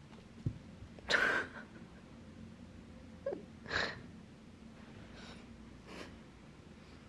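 Two short, sharp sneeze-like snorts about two and a half seconds apart, the first the louder, with a soft thump just before them.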